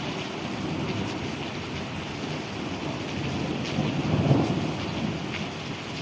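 Thunder rumbling over steady rain, the rumble swelling to its loudest about four seconds in before fading back.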